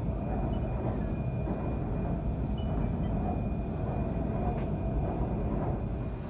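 Passenger train running along the track, heard from inside the carriage: a steady low rumble with a faint high steady whine and a few light clicks.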